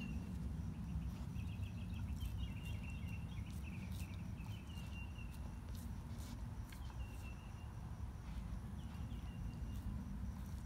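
A dog licking and mouthing a raw whole lake herring, giving scattered small wet clicks, over a steady low background rumble.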